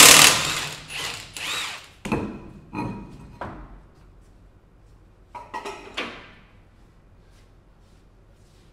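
Tools working on a pickup truck's front brakes, in a string of short noisy bursts. The loudest burst is right at the start, with more in the first few seconds and a couple more about two seconds later.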